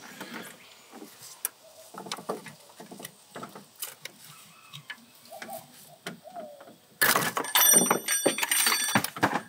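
Scattered light clicks and knocks of hands and tools working in an engine bay, freeing a radiator pipe from the back of the cylinder head. About seven seconds in comes a louder stretch of scraping with several steady high ringing tones.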